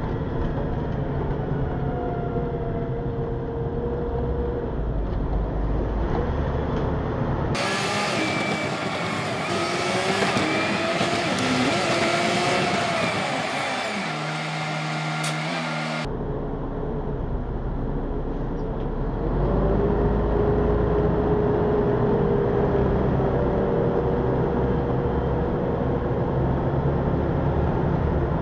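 Ligeirão express bus running along its route: a steady low engine and road rumble with a faint whine that holds and then glides in pitch. For several seconds in the middle the sound turns brighter and hissier and the low rumble drops out, then the rumble returns.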